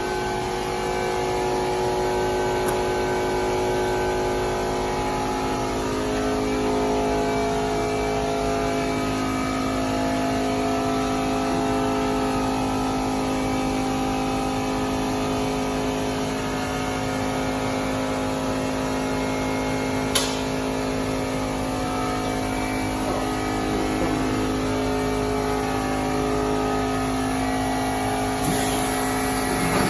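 Heidelberg paper folding machine running steadily, a constant hum of its motor and rollers with several held tones. A single sharp click about twenty seconds in.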